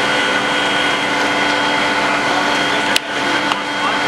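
Steady loud drone with several held tones over a hiss, at a large building fire. A sharp crack comes about three seconds in, and a fainter one half a second later.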